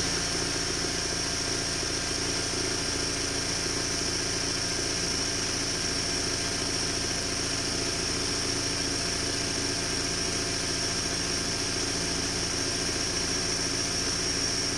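Embroidery sewing machine running steadily without pause, stitching gold cord onto fabric held in a hoop, with a steady high whine over the motor.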